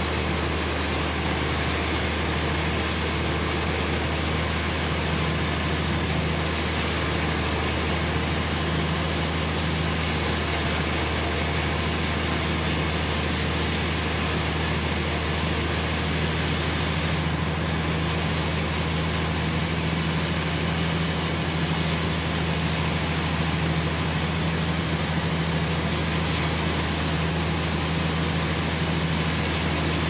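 Sawmill running steadily as it saws a large trembesi (rain tree) log: a constant low machine hum under an even rushing noise, with no break or change.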